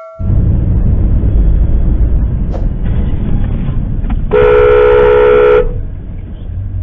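Steady low rumble of road and engine noise heard from inside a moving car, with a car horn sounding once for just over a second about four seconds in.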